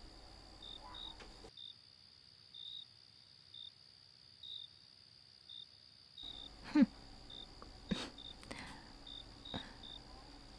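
Crickets chirping, short chirps repeating about once or twice a second over a faint steady high whine. A brief soft voice sound and a couple of faint knocks come in the second half.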